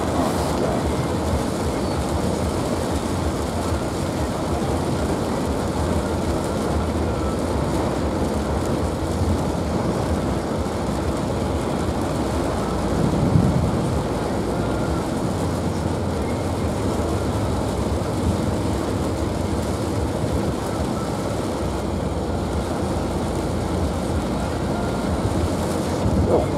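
Heavy rain hitting the car's roof and windscreen together with road and engine noise, heard from inside the cabin of a car driving through a supercell downpour. The noise is steady, with a brief low rumble about halfway through.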